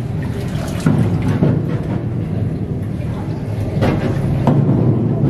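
Underground tour boat travelling through a flooded rock tunnel: a steady low drone echoing off the rock walls, with a few sharp knocks.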